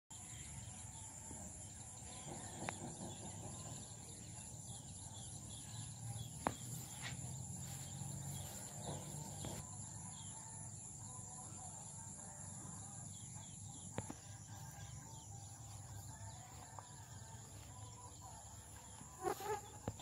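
Faint dawn field ambience: a steady high insect buzz under a low hum, a few sharp clicks, and a short animal call about a second before the end.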